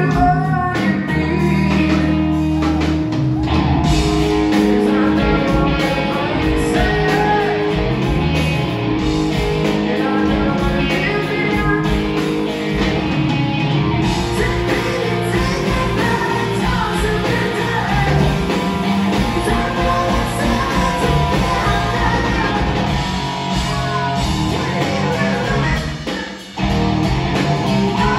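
Live rock band playing: electric guitar, bass guitar and drums with a male lead singer, through a concert PA. The band cuts out for a moment near the end and comes straight back in.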